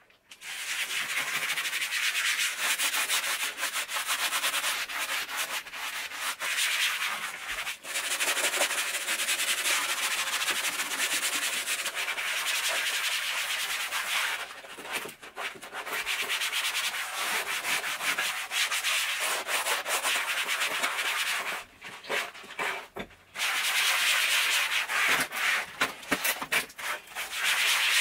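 Hand-scrubbing a rough, gritty floor with soapy suds in fast circular strokes: a continuous rasping scrub, broken by a few short pauses.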